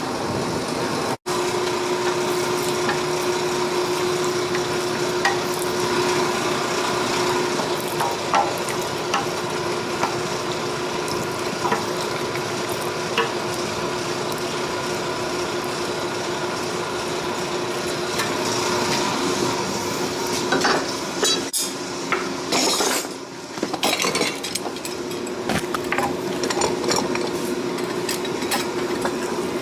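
Forge running with a steady hissing roar and a steady hum, with scattered metallic clicks and clinks in the last third.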